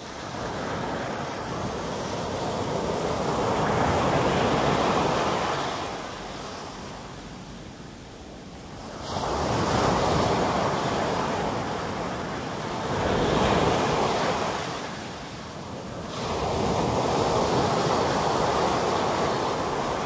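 Sea waves breaking and washing up a fine-gravel beach. The surf swells and ebbs about four times.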